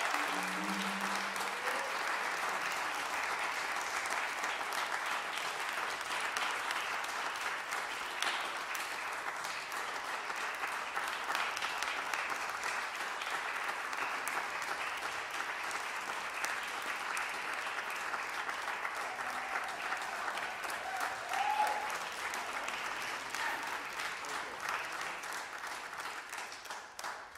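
Audience applauding steadily, the clapping slowly thinning out toward the end, with a short call from the crowd rising above it about two-thirds of the way through.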